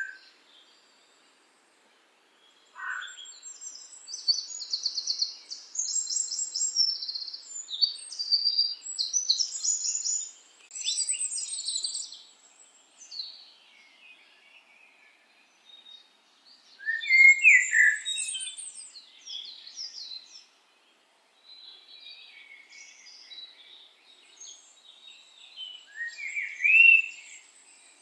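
Wild birds chirping and singing: quick high trills and chirps with a few lower, sweeping calls, coming in spells with short quiet gaps, the loudest calls about two-thirds of the way through and near the end.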